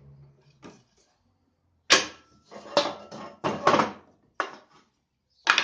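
Handling noise of a homemade wooden throat plate at a table saw: a sharp knock about two seconds in, then a run of short clattering, scraping knocks, and one more near the end.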